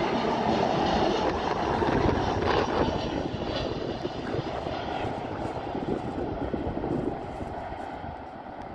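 Jet engines of a Vueling Airbus A320-family airliner landing and rolling out on the runway: a steady engine noise, loudest in the first few seconds and fading from about seven seconds in.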